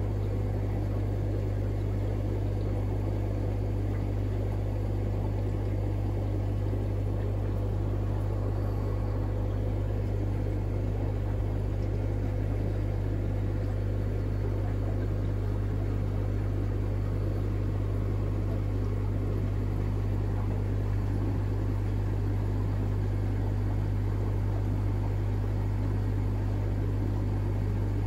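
Aquarium air-pump setup running: a steady low hum under a continuous bubbling hiss from the air-driven sponge filter.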